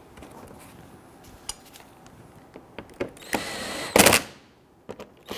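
Cordless power driver spinning a screw into the plastic splash guard under a bumper: a steady whine for under a second, then a short, louder burst about four seconds in. A few faint clicks of plastic being handled come before it.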